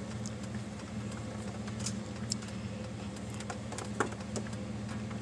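A pickup truck's engine idling steadily, heard from inside the cab, with a few light clicks over it, the sharpest about four seconds in.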